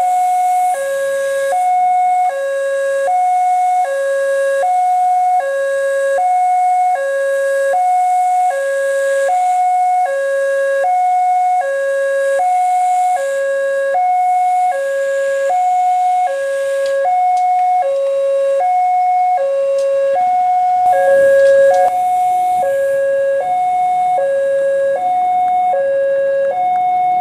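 Railway level-crossing warning alarm: an electronic two-tone signal from the crossing's loudspeaker, stepping steadily between a higher and a lower note about once every 1.3 seconds, sounding because a train is approaching. A brief low rumble joins it about 21 seconds in.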